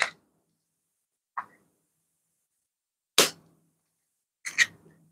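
A few short, sharp clicks separated by silence, the loudest about three seconds in.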